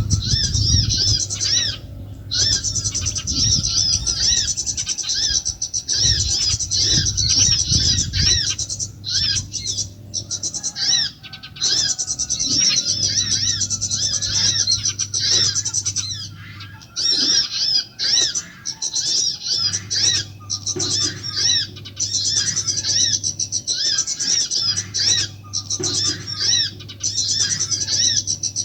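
Small birds chirping and twittering in a dense, almost continuous run of high, quick notes with a few short breaks, over a steady low hum.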